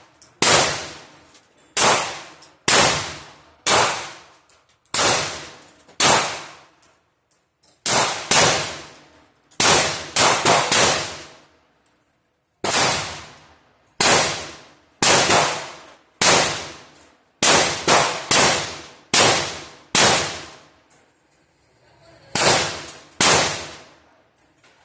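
Handgun shots at a shooting range: about two dozen sharp reports, irregularly spaced with some quick doubles and runs, each followed by a brief ringing echo.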